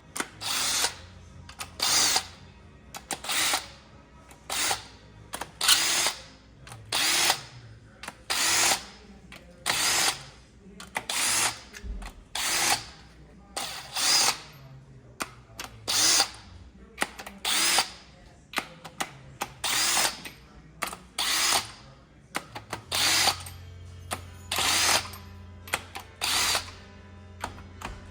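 Power tool running in short, repeated bursts, about one every second, while the main cap bolts of a 6.0 LS block are loosened. A faint steady low hum sits underneath.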